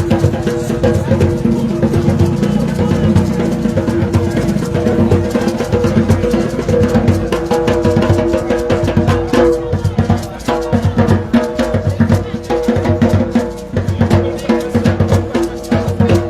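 Music with a steady drum-kit beat over held notes.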